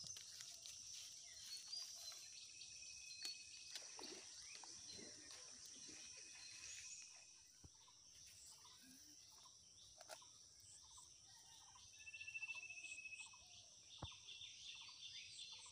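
Faint rural ambience: a steady high-pitched drone of insects, with scattered short bird chirps and a brief trill about twelve seconds in, plus a few faint clicks.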